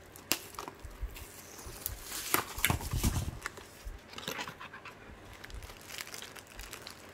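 Cardboard box and plastic wrap being handled: scattered clicks and rustling, with a cluster of louder scuffs and crinkles about two to three seconds in.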